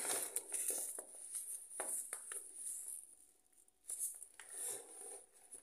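Rustling and light knocks from handling a paper packet of semolina and other grocery packages. The sounds stop for a moment about three seconds in, then a few more short rustles follow.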